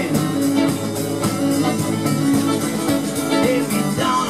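Live rock-and-blues band playing: electric guitars, bass guitar and drum kit, in a mostly instrumental stretch of the song.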